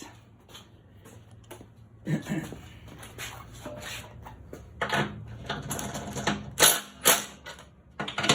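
Ratchet wrench clicking and metal clanking as the skid plate bolts of a new Ariens snowblower are worked loose for setting the auger height, with several louder knocks in the second half.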